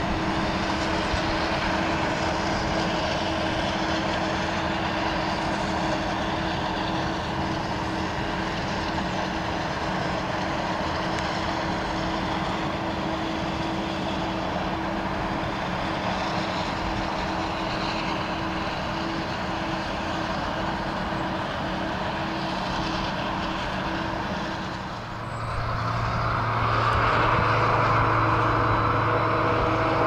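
Claas self-propelled forage harvester chopping maize, its engine and cutterhead running at a steady working hum, with the tractor hauling the silage trailer alongside. About 25 seconds in the sound drops briefly, then comes back louder with a deeper steady drone.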